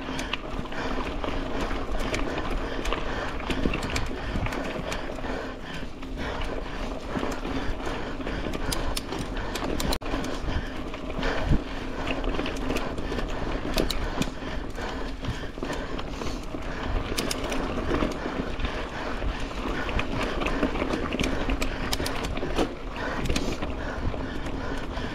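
Mountain bike ridden fast along a rough dirt trail: steady tyre and air rush, with frequent clicks and knocks of the chain and frame rattling over bumps.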